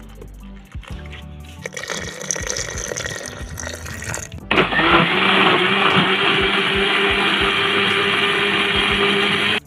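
Liquid poured into a countertop blender jar over onion wedges, paste and seasonings. Then about halfway through, the blender motor starts abruptly and runs steadily at high speed, blending the mixture into a marinade. It cuts off sharply near the end.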